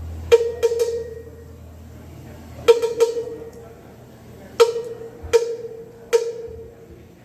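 Cowbell struck by itself in a stop in the band's playing, a handful of sharp hits in small groups of two or three, each ringing briefly.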